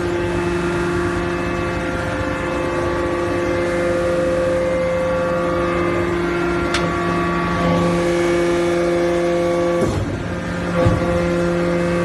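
Hydraulic power unit of a Y81K-400 scrap metal baler running, a steady hum with a light click about seven seconds in and a short knock near eleven seconds.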